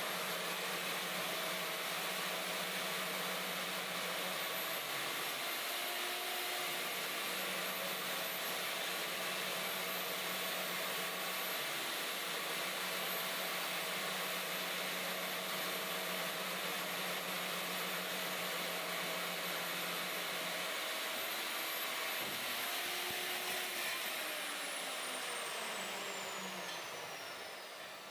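Electric concrete core-drilling machine running steadily while coring a 4-inch hole through a reinforced concrete slab, its motor giving a constant high whine. Near the end it is switched off and the whine falls as the motor spins down.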